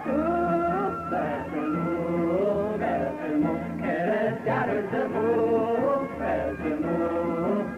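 Ethiopian Protestant gospel song: a male voice singing over instrumental accompaniment with sustained low bass notes.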